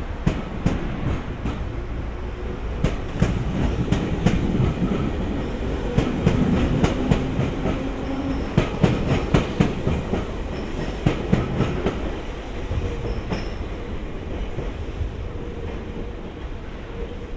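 JR East 205-series electric train pulling out and running past close by, its wheels clicking in quick groups over rail joints with a steady rumble. It is loudest in the middle and fades as the train draws away near the end.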